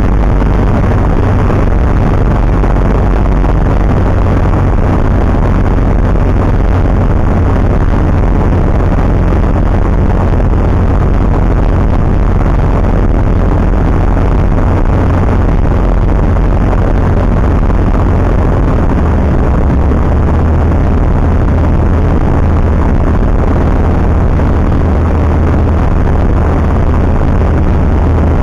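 Single-engine light aircraft's engine and propeller running in flight, heard from inside the cockpit: a loud, steady drone with a strong deep hum underneath.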